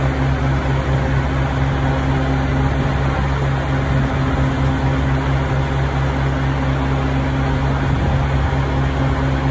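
Steady low mechanical hum of diesel fuelling at a truck-stop pump, the pump running continuously as fuel flows into the semi truck.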